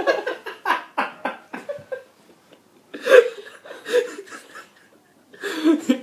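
People laughing: rapid bursts of laughter that fade over the first two seconds, a few more short laughs about three and four seconds in, and another burst of laughter near the end.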